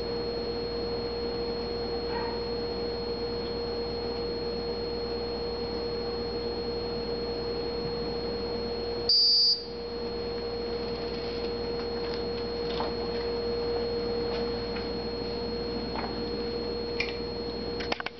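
Meade LXD55 equatorial mount's drive motors giving a steady, pure-toned electronic whine. About halfway through there is a short, loud, high beep from the Autostar handset, and a few light clicks come near the end.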